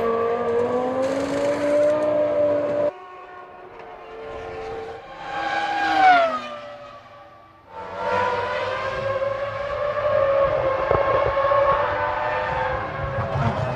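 1999 Formula One V10 race car engines at speed, with a steady high engine whine. About three seconds in it cuts abruptly to quieter sound. A car then passes, its note peaking about six seconds in and falling in pitch as it goes, and from about eight seconds in a steady engine whine runs again.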